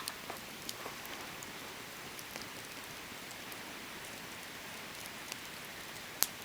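Campfire burning: a steady hiss with scattered sharp crackles and pops, the loudest pop near the end.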